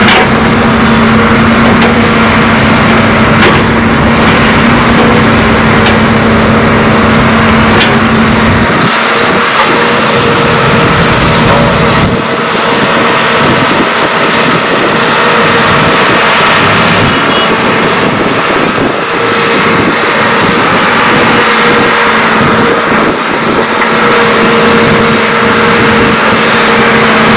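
Diesel engines of Hitachi ZAXIS hydraulic excavators running steadily under load as they dig and load earth, with a few faint knocks. The deep part of the engine sound drops away about nine seconds in.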